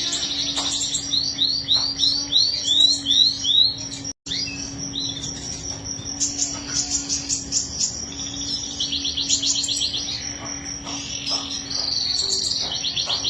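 Domestic canary singing: fast rattling trills, then a run of slower swooping notes about three a second, then more rolling trills. The sound cuts out for an instant about four seconds in.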